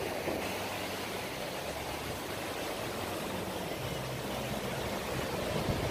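Small waves washing onto a sandy beach, a steady rushing noise, with wind blowing on the microphone.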